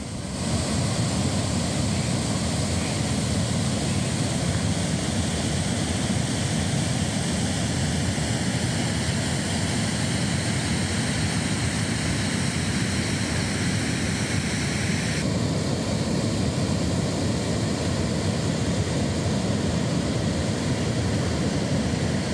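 Floodwater pouring over a dam weir: a steady rushing noise, heaviest in the low range. The hiss on top dulls slightly about fifteen seconds in.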